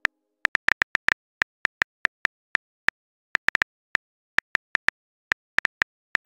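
Phone keyboard key clicks as a message is typed: a quick, uneven run of short sharp ticks, roughly five a second, with a few brief pauses.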